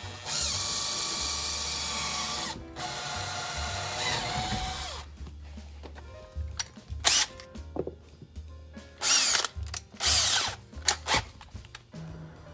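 Power drill boring a pilot hole for a switch: two long runs in the first five seconds, the second slowing down in pitch as it stops, then several short trigger bursts as the hole is worked.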